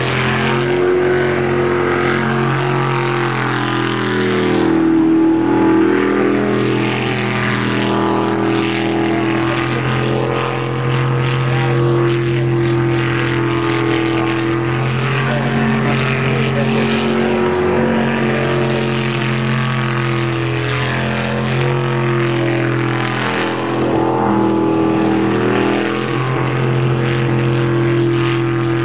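Sprint jet boat's racing engine at high revs during a timed run, its pitch rising and falling over and over with the throttle through the turns.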